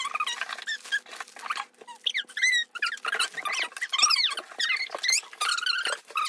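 Young children's high-pitched chatter and squeals, with the crinkle of plastic snack wrappers being handled.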